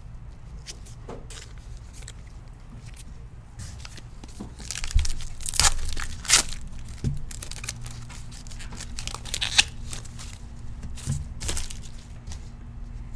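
A foil trading-card pack wrapper being torn open and crinkled, with the cards inside sliding and rustling. The loudest tearing comes between about five and six and a half seconds in.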